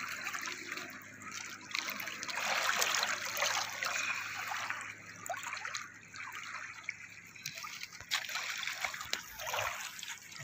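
Small waves lapping and trickling against a stony shore, a rippling wash that swells and ebbs with small splashes.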